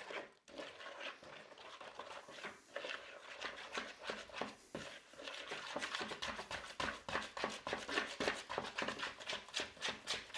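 Flour being stirred into hot water, lemon juice and oil in a pot: rapid, repeated scraping and knocking strokes, several a second, coming faster in the second half as the mixture thickens into play dough.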